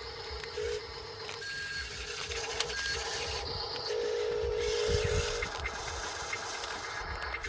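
Small electric gear motors of a Huina 1594 RC excavator whirring in short runs, starting, stopping and changing pitch as the controls are worked.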